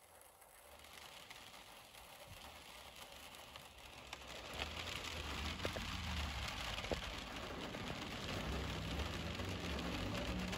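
Heavy rain hissing, with a few sharp drops tapping on the window glass. Vehicles swish past on the flooded road, and the tyre hiss and a low rumble build from about four seconds in.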